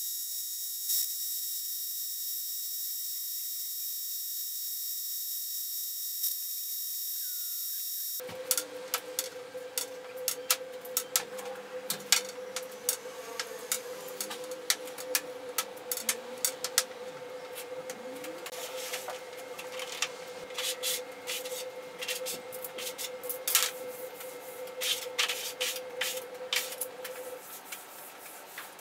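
A spray gun hisses steadily as it sprays contact adhesive for about eight seconds. Then come irregular clicks and clatters, over a steady hum, as the glue-coated laminate sheet is laid down and the spacer slats are pulled out from under it.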